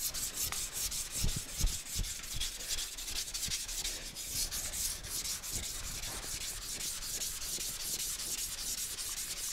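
Hand sanding of a primed car fender with a sanding pad: rapid back-and-forth rubbing strokes making a dry, hissy scratching, working the primer and guide coat down. A few light knocks come in the first two seconds.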